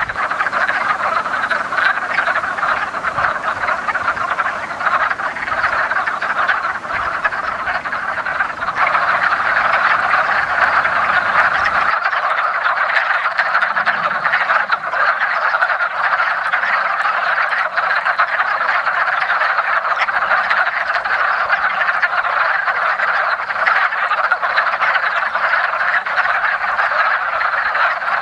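A dense breeding chorus of many male wood frogs calling at once from a vernal pool, with no pause in it. A low rumble underneath drops out about twelve seconds in.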